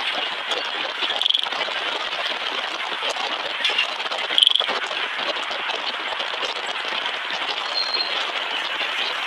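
Steady road and wind noise heard from a moving vehicle, with two short high squeaks, about a second in and at about four and a half seconds.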